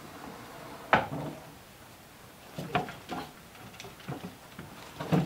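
A few scattered light knocks and clicks over quiet room tone, the sharpest about a second in, the rest weaker and spread over the next few seconds.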